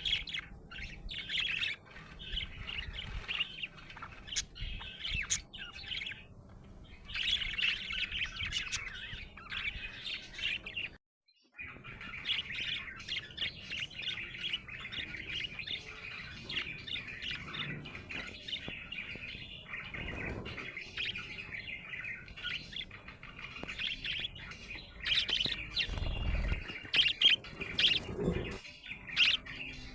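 Budgerigar chirping and chattering continuously in quick, high, twittering notes, breaking off for a moment about eleven seconds in. A dull low bump comes near the end.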